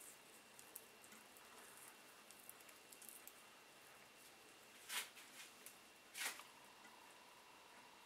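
Faint crackling and rustling of coily hair being twisted between fingers slick with aloe vera gel, with two short louder hissing sounds about five and six seconds in.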